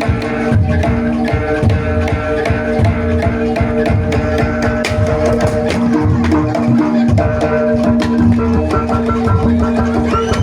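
Live jaranan accompaniment music: drums played in a busy steady rhythm under several held tones.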